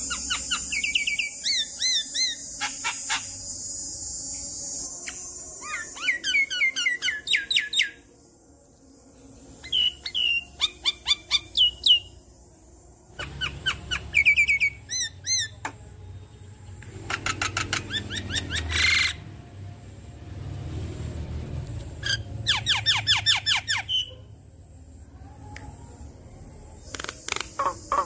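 Javan myna calling in bursts every few seconds: rapid series of harsh chattering notes mixed with short wavering whistles. An insect's steady high buzz runs under the first few seconds.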